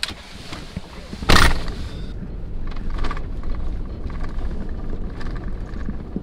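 A pickup truck's door slams shut about a second in. The truck's engine then runs steadily with a low rumble heard from inside the cab.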